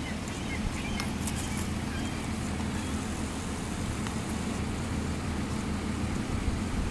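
A steady low mechanical hum, like an engine or motor running, under a wash of outdoor background noise, with a few faint clicks.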